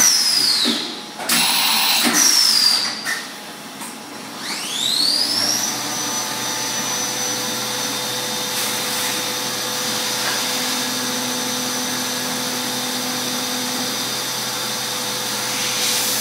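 CNC milling machine spindle winding down with a falling whine. About four and a half seconds in it spins up again with a rising whine that settles into a steady high whine. Near the end a hiss joins it as the flood coolant comes on.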